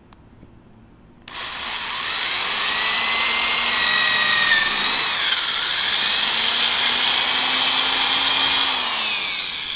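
Electric drill running and boring a hole through the metal pipe of a bimini top frame, starting about a second in; the motor's pitch sags mid-way and again near the end as the bit loads up.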